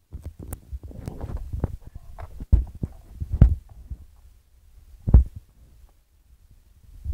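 Handling noise: irregular dull thumps and a few sharp clicks, with rustling in the first few seconds and single heavier thumps later on.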